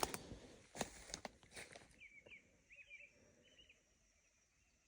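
A few sharp steps crunching through forest brush in the first two seconds, then several short, faint bird chirps, after which it falls almost silent.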